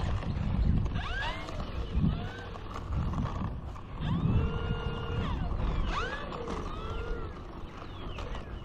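Wind buffeting the microphone, with songbirds chirping over it throughout. About halfway through, a steady whistle-like tone holds for about a second.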